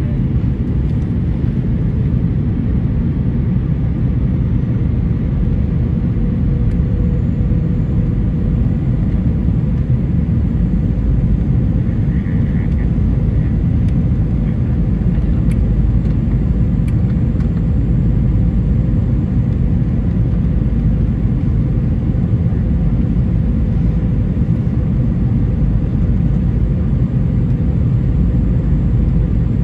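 Steady low roar of a jet airliner's engines and rushing air, heard from inside the passenger cabin during the descent to land.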